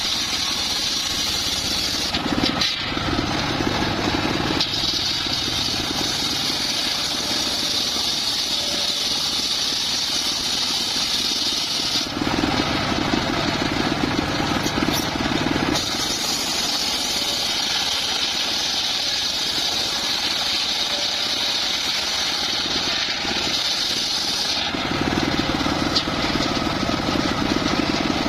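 Homemade engine-driven circular sawmill running steadily while it saws timber. Three times its high, hissing cutting sound drops out for a few seconds and a lower rumble takes over.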